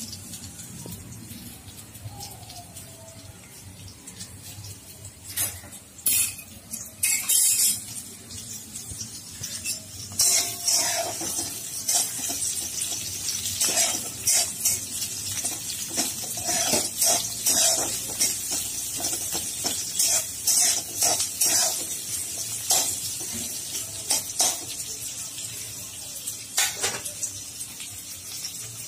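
A metal spatula scraping and knocking against a metal kadai as halved small onions are stirred in hot oil, in irregular strokes from about five seconds in, over a steady sizzle of the frying.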